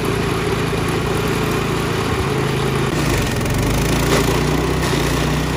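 Small petrol engine of a walk-behind stump grinder running steadily at working speed while its cutter wheel grinds down a tree stump.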